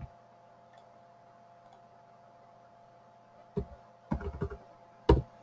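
Computer mouse clicking: one click at the start, then a few scattered clicks about three and a half seconds in, and a firm one near the end, over a faint steady electrical hum.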